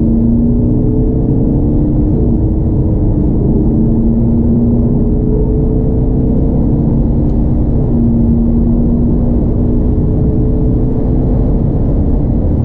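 Mini Countryman D's 2.0-litre four-cylinder turbodiesel pulling hard under full acceleration, heard inside the cabin as a steady engine drone over tyre and road rumble. The engine note creeps slowly up in pitch as speed builds.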